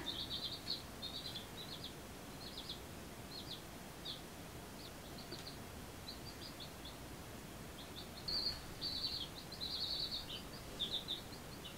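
Baby chicks peeping faintly: a stream of short, high peeps, busiest about eight to ten seconds in.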